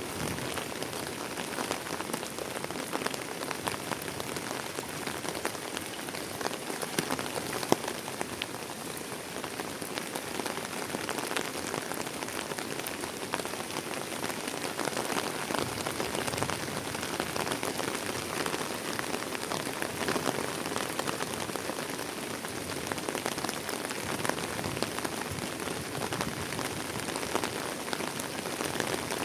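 Heavy rain falling steadily, a dense patter of many individual drops.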